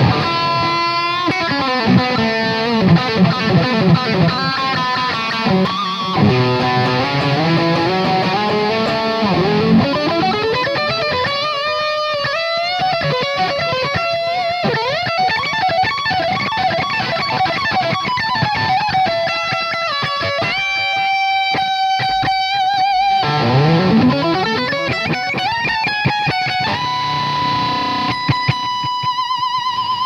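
Soloking MT-1 Custom electric guitar played with a distorted lead tone: fast runs of single notes, sweeping pitch glides, and near the end one long note held with a wide vibrato.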